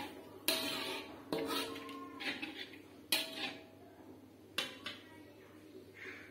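Metal spatula clanking and scraping against a wok while stirring a spice paste frying in oil. There are four sharp clanks, each with a short metallic ring, spread through the first five seconds, with scraping between them.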